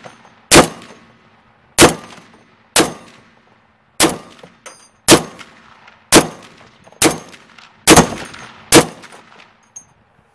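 A Vigilance Rifles M14 .50 BMG semi-automatic rifle firing M33 ball, nine single shots at a steady pace of about one a second, each followed by a short echoing tail. It is a function test of the gas-operated semi-auto action, emptying a 10-round magazine. Light metallic clinks fall between some of the shots.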